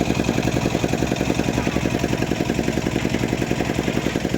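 An engine running steadily at an even speed, with a fast regular chugging beat.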